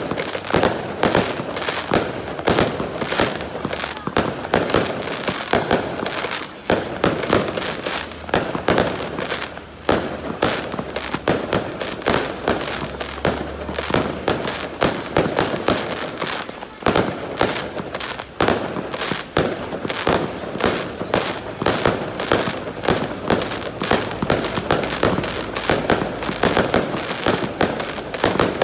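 Aerial fireworks shells bursting in a rapid, unbroken barrage of bangs, several a second.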